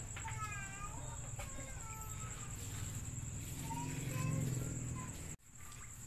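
A few short, curved bird-like clucking calls in the first half, over a steady high whine and a low hum. The sound cuts off abruptly near the end.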